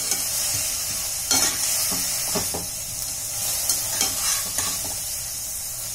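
Chopped coriander leaves frying in oil in a pan with a steady sizzle as their water cooks out. A metal slotted spatula stirs and scrapes against the pan several times.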